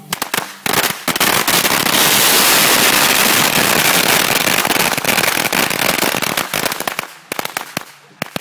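A heap of red firecracker strings going off together: a few sharp bangs at first, then within about a second a dense, unbroken crackle of rapid bangs that thins to scattered single bangs near the end.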